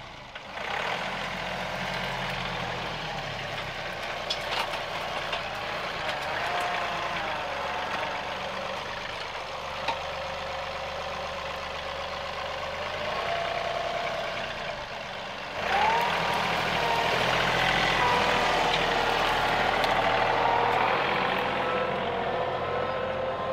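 John Deere 2038R compact tractor's diesel engine running, with a wavering whine that rises and falls in pitch. It gets louder about sixteen seconds in.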